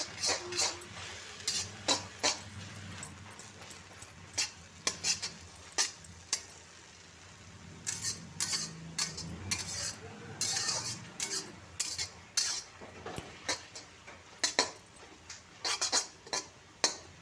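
Metal spatula scraping and clinking against a metal kadhai as leafy greens are stir-fried, in irregular runs of quick strokes.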